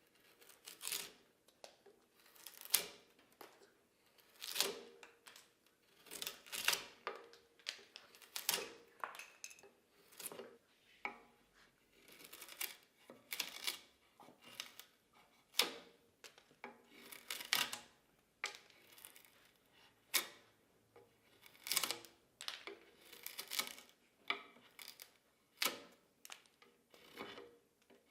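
Repeated hand-worked rubbing or scraping strokes, about one a second, each a short hissing swell that rises and fades.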